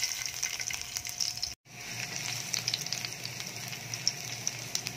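Sliced garlic sizzling and crackling in hot oil in a nonstick frying pan. The sound cuts out for a moment about a second and a half in, then resumes.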